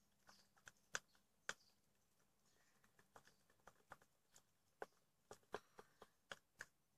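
Faint, scattered light clicks and taps of a utensil and containers being handled at a mixing bowl of slime mixture, about fifteen irregular knocks.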